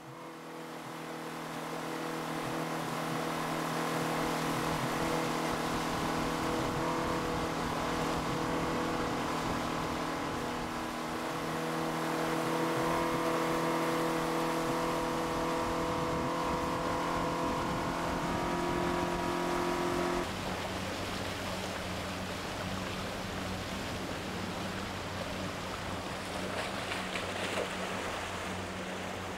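A small boat's motor running steadily under a hiss of water and wind. About two-thirds of the way through, the engine is throttled back to a lower, quieter drone.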